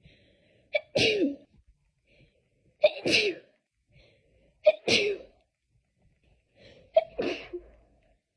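A person in a sneezing fit, sneezing four times about two seconds apart. Each sneeze is a brief catch of breath followed by the loud burst.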